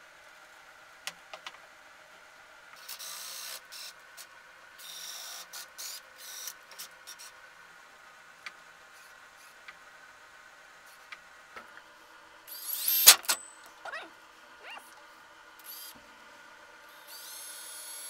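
Handling sounds of a plywood dust-collector arm and PVC pipe being fitted and adjusted: scattered light clicks and knocks and a few short scraping rustles, with one loud squeaky scrape about 13 seconds in. A brief high whirring comes near the end.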